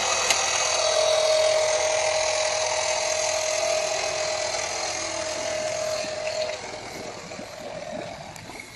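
Water Tech Pool Blaster Max Li cordless pool vacuum's P30 motor running with a steady high whine, which grows quieter over the last few seconds.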